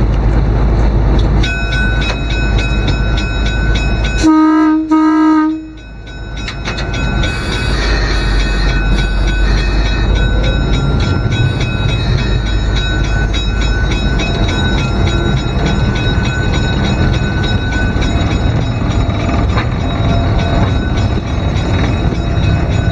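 GE 44-ton diesel locomotive running, heard inside its cab, with the engine rumbling steadily. Its air horn sounds two short blasts about four seconds in, and the engine carries on as the locomotive moves along.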